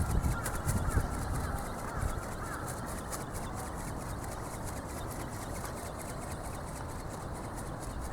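Strong wind buffeting the microphone, gusting hard at first and easing to a steady rumble after about two seconds. Faint fast ticking runs throughout, and a few faint short chirps come in the first two seconds.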